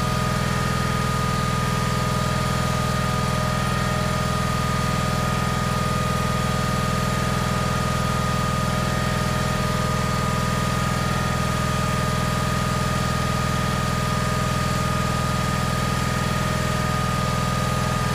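John Deere 300-series garden tractor engine idling steadily.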